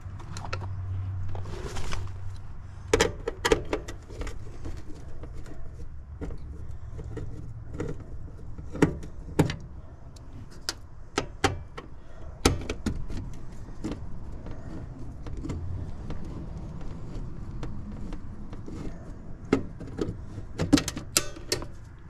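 Scattered metal clicks and clinks of hand tools and parts being handled, some in quick clusters, over a steady low hum; typical of work on a heat pump's contactor and wiring.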